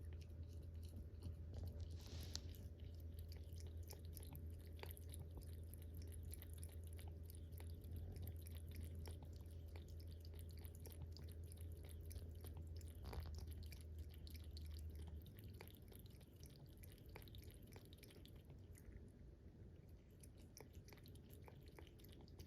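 A cat lapping water with its tongue: faint, quick, irregular wet clicks. A low steady hum underneath stops about two-thirds of the way through.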